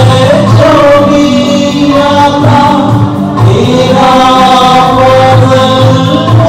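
Devotional hymn music: a sung melody with long held notes and slow pitch glides over instrumental accompaniment.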